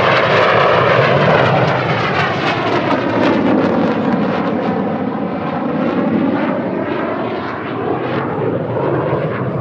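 Loud jet noise from Red Arrows BAE Hawk T1 jets flying past, a continuous rushing roar with a sweeping, phasing quality as the aircraft move overhead.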